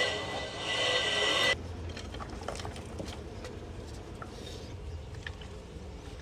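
A loud steady noise with a high tone cuts off suddenly about a second and a half in. Then comes the faint sound of moulding sand and clods being tipped from a pan into a steel casting flask, with scattered light knocks.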